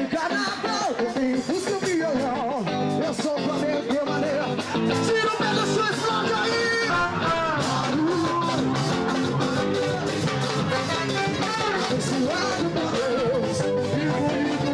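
A live band playing amplified music, a singer over guitar and a steady beat.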